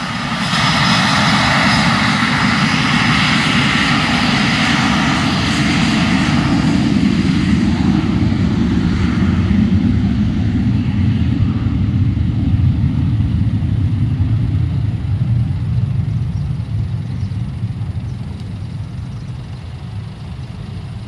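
Business jet engines roaring loudly on the runway. A high whine over the roar fades after about seven seconds, leaving a low rumble that slowly dies away near the end.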